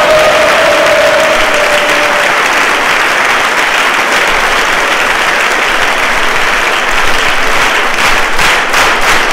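A large crowd applauding loudly and steadily. One voice holds a long cheer over the clapping at first, fading out about two seconds in.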